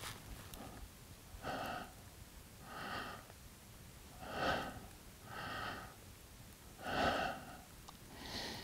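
A person breathing in and out close to the microphone while aiming a rifle: six audible breaths, about one every second and a half.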